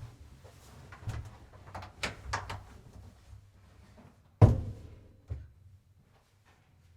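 Clicks and knocks of a door being handled, then a loud door bang about four and a half seconds in, followed by one smaller knock.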